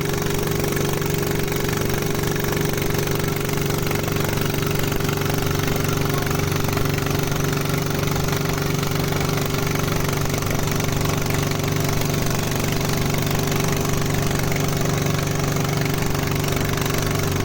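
A boat's engine running steadily at an even idle, a constant low hum.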